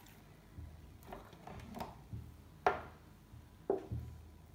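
A sheet of oiled, hand-stretched börek dough being lifted and laid into a round metal baking tray: soft rustling, then two dull knocks a second apart as hands and dough meet the tray.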